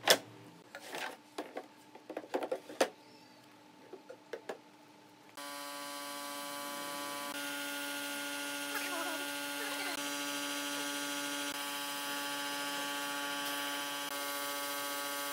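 Wooden drawers sliding and knocking in their pine runners, a few scattered clicks and thumps. About five seconds in, a steady hum with a hiss starts suddenly, from a compressed-air spray gun and its air compressor spraying finish onto the bench.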